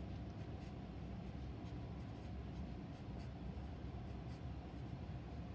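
Felt-tip marker writing on paper in short, irregular strokes, over a steady low hum.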